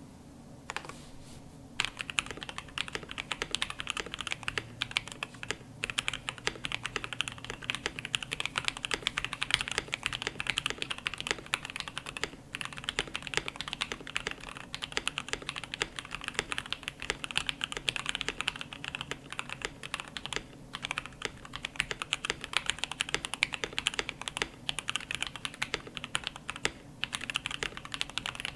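Fast typing on a KBD67 Lite custom mechanical keyboard with lubed, filmed 67 g C3 Tangerine linear switches on a POM plate under PBT keycaps: a dense run of keystrokes starting about two seconds in, broken by a few brief pauses.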